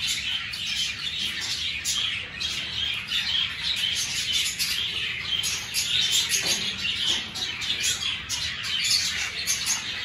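A flock of caged budgerigars and cockatiels chirping and chattering without a break: many short, overlapping high calls.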